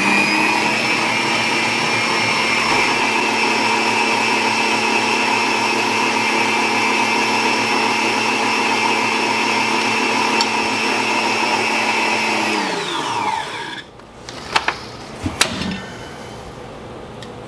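Electric stand mixer running steadily at high speed, its wire whisk whipping buttercream. About 13 seconds in it is switched off and the motor winds down, falling in pitch, followed by a few sharp clinks.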